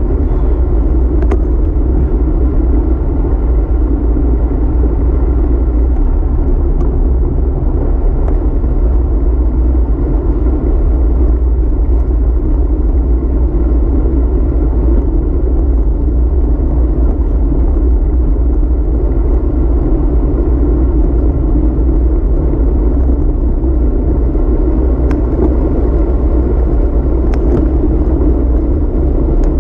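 Steady rumble of wind buffeting a handlebar-mounted camera's microphone, mixed with bicycle tyre noise on asphalt while riding. A few faint ticks come through, one early and two near the end.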